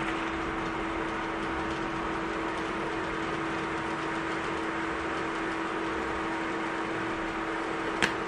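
Steady hum and fan-like hiss from a running kitchen appliance, with one sharp click near the end.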